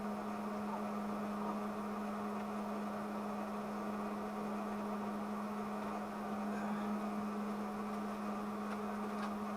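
A steady, even electrical hum with a faint hiss behind it.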